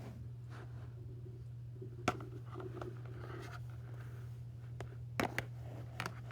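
Light handling noises: faint rustling and a few sharp clicks, the loudest about two seconds in and a cluster near the end, over a steady low hum.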